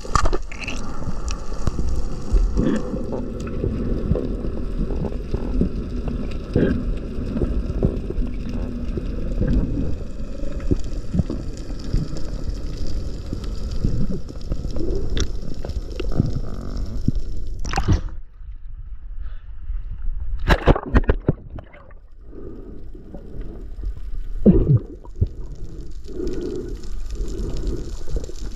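Underwater sound picked up through a camera's waterproof housing: a low, rumbling water noise with scattered sharp clicks and knocks. It drops away for a few seconds past the middle, broken by a few louder clicks, then the rumble returns.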